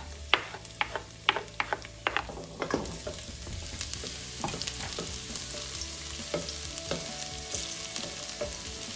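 Minced garlic sizzling in hot vegetable oil in a pan: the start of a sauté. A run of sharp clinks from a utensil against the pan over the first three seconds, then a steady crackling sizzle as it is stirred.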